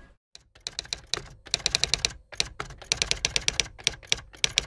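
Typing sound effect of the kind laid under on-screen text: a fast, uneven run of sharp key clicks, starting about half a second in after a moment of near silence.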